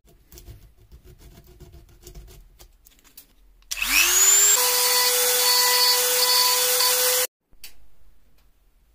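Dremel rotary tool switched on: its small motor whines up to full speed over about a second, then runs freely at a steady high pitch for about three seconds before cutting off abruptly. Before it starts there are only faint light scraping ticks.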